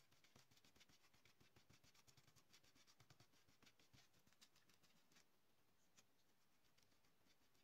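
Faint, quick scratchy strokes of a bristle brush scrubbing and dabbing glue onto the paper spine of a sewn book block, with a short pause about five seconds in before the strokes resume.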